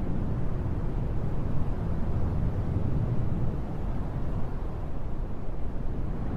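Wind blowing: a low, steady rush that eases from a louder gust at the start and then holds fairly even with small swells.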